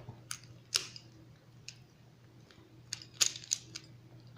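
Plastic Rubik's Cube pieces clicking as an edge piece is fitted into the partly rebuilt cube: scattered sharp clicks, with a few close together about three seconds in.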